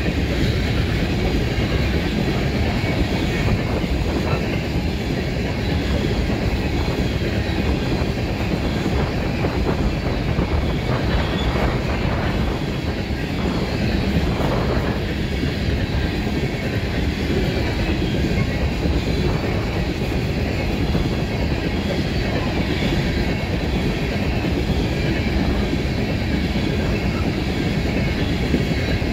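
Coal train's hopper cars rolling steadily past: steel wheels rumbling and clacking over the rails.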